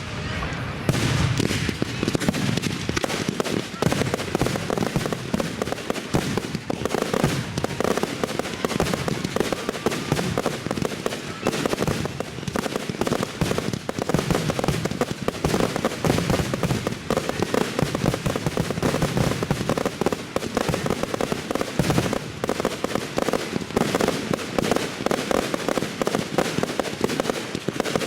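Fireworks finale: a dense, continuous barrage of shell bursts and crackle, many reports a second with no pause.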